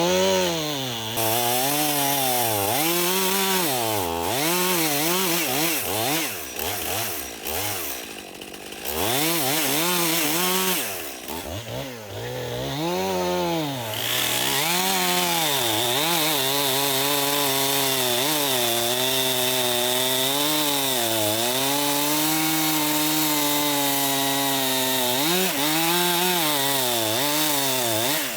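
Stihl MS291 two-stroke chainsaw cutting wood, its engine pitch repeatedly rising and sagging as the chain loads up and frees. It eases off twice, about a third and then half way through, then holds a steadier high speed through the rest of the cut.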